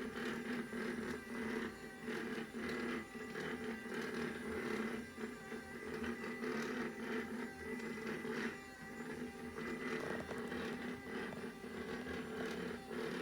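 Small battery robot vacuum cleaner running, its motor giving a steady whine, with irregular light clicks and rattles as it moves and bumps about.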